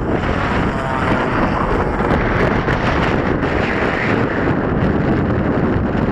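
Strong gusty wind buffeting the microphone, with the DA35 gas engine of a 75-inch Extra 330 RC aerobatic plane running in flight underneath it.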